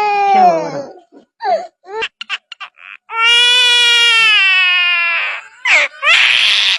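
A bird giving wailing, baby-like cries. A drawn-out cry trails off at the start, then come a few short yelps, then another long cry of about two seconds that sags slightly in pitch, and a harsh rasp near the end.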